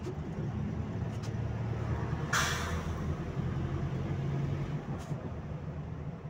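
Interior of a Bogdan A20111 city bus under way: the engine drones steadily with road noise, and about two and a half seconds in there is a short hiss of compressed air from the bus's pneumatics, with a couple of light rattles.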